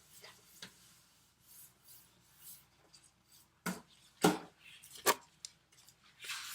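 Handling noise: soft rubbing and rustling with a few sharp clicks and knocks, most of them in the second half, as the parts of a headlight sanding kit are handled.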